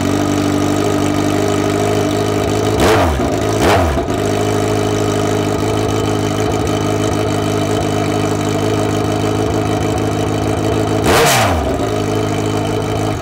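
2010 Kawasaki Z1000's inline-four running through Black Widow race headers with no mufflers fitted, idling loud and even. It is blipped twice about three seconds in and once more near the end, then cut off.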